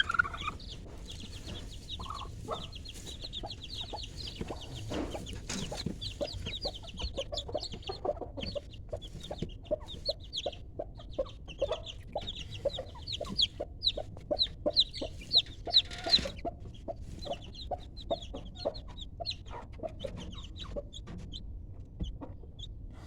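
Aseel chickens clucking and calling, a rapid run of short high notes repeating several times a second, busiest in the middle and thinning out near the end.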